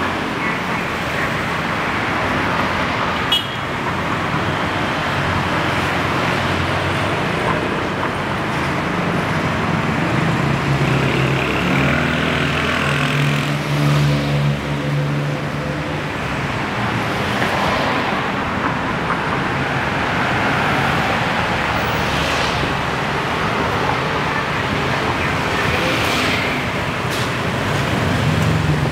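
Steady city street traffic, cars and motorbikes passing close by. About halfway through, a songthaew (pickup-truck minibus) passes, its engine the loudest sound for several seconds.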